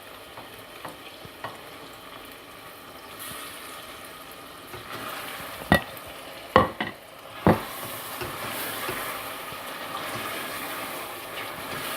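Chicken pieces frying in oil with garlic-ginger paste in a pot, sizzling steadily as they are stirred. Three sharp knocks come a little past halfway, and the sizzle grows louder over the last few seconds.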